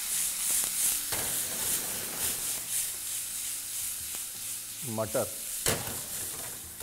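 Cumin seeds and asafoetida sizzling and crackling in hot oil in a pan. The hiss fades gradually, and there is one sharp knock about two-thirds of the way in.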